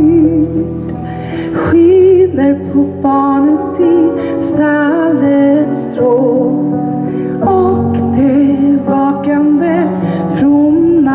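A woman singing a slow, tender song live into a handheld microphone, holding long notes with vibrato over instrumental accompaniment.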